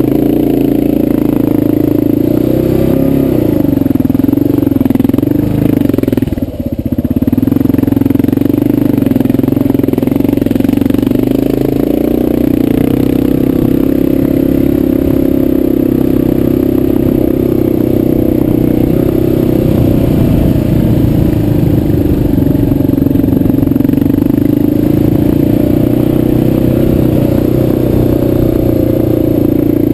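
Motorcycle engine running while riding along a dirt track, its pitch wandering up and down as the throttle changes, with a brief drop about six seconds in.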